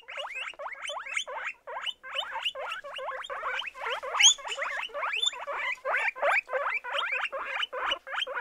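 A small animal squeaking in a rapid series of short rising chirps, about three or four a second.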